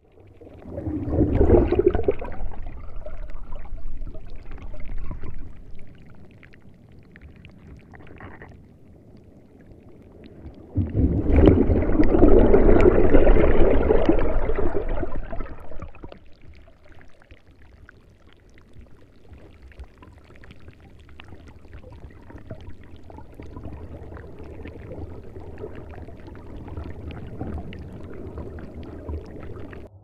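Underwater ocean ambience: a low rumble with gurgling water that swells up loudly twice, about a second in and again from about eleven to fifteen seconds in, then settles to a softer steady wash.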